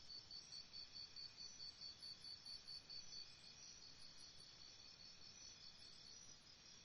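Crickets chirping faintly: a high chirp repeating evenly about five times a second, which fades after a few seconds, over other high insect trills.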